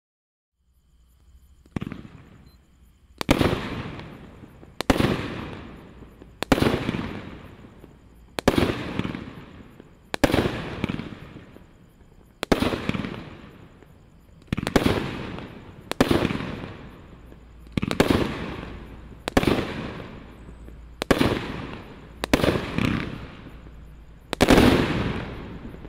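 A 16-shot firework cake that shoots flaming balls, firing its shots one at a time: a sharp bang about every one and a half to two seconds, each fading over a second or so. The loudest shot comes near the end.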